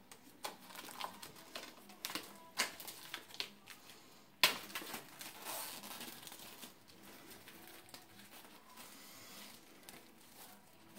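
Plastic shrink wrap being picked at, torn open and peeled off a Blu-ray case: a run of small crackles and clicks, one sharp crack about four and a half seconds in, then crinkling of the loose film that fades toward the end.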